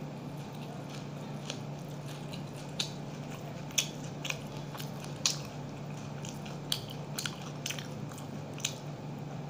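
Close-up eating sounds: crisp, irregular crunches as a man bites, breaks and chews fried gram-flour-battered leaf pakoras, about a dozen sharp crackles over several seconds. A steady low hum runs underneath.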